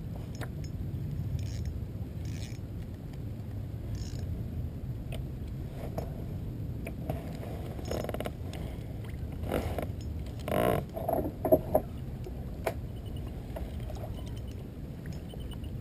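Spinning reel being cranked, its gears ticking, over a steady low wind-and-water rumble. A few short, louder knocks come about two-thirds of the way through.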